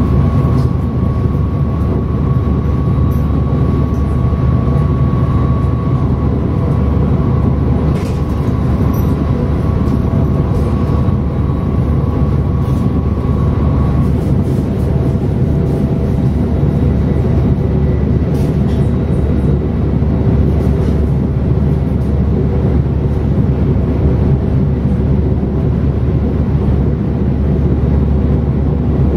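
Siemens Mireo class 463 electric multiple unit running at speed, heard from inside the train: a steady rumble of wheels on the track overlaid by the thin whine of the traction drive. The highest whine fades out about halfway through while the rumble carries on unchanged.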